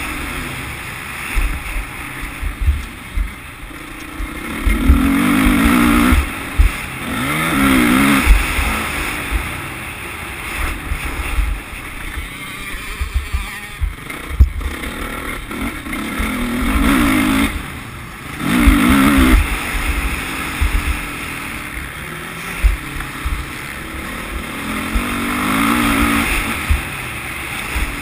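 Motocross dirt bike engine being ridden hard, the throttle opening in surges every few seconds so the engine note rises and falls, with wind buffeting the microphone.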